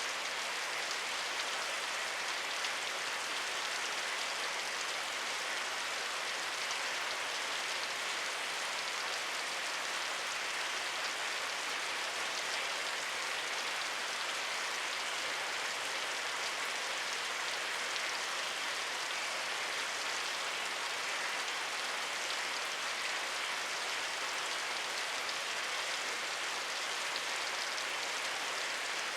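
Steady rainfall: a dense, even hiss of rain falling on surfaces, with no distinct drips or changes.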